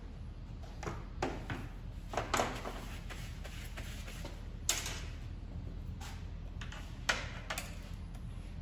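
Scattered clicks and light metal knocks of hand tools working on a petrol brush cutter, as screws and parts are taken off, over a steady low hum. Two sharper clicks stand out, about halfway and near the end.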